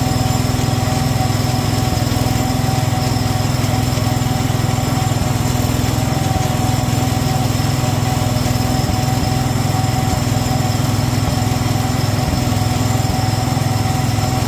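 Garden tractor engine running steadily at a constant speed, heard close up from the tractor being driven, with its even hum unchanged throughout.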